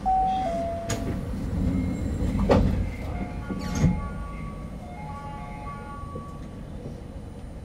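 Osaka Monorail 2000 series train running, heard from inside: a steady low rumble with thin electric-motor tones that step up and down in pitch, and two short knocks, about two and a half and four seconds in.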